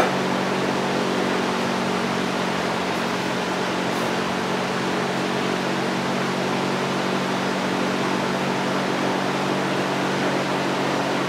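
Steady machine hum with an even hiss, holding one pitch throughout, like a running fan or motor.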